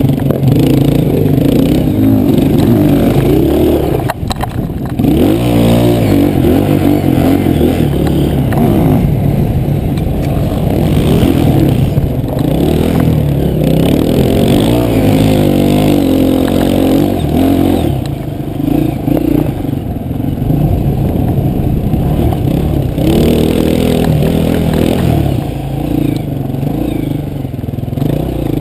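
Enduro dirt-bike engine ridden hard over a rough trail, revving up and down with the throttle and gear changes, with a brief dip about four seconds in, and rattling from the bike over the bumps.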